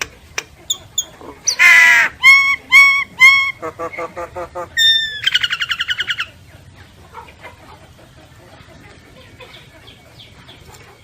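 Common myna singing a loud, varied phrase. It opens with a harsh call, then gives three repeated ringing notes and a quick run of lower notes, and ends in a fast rattling trill that stops a little past the middle.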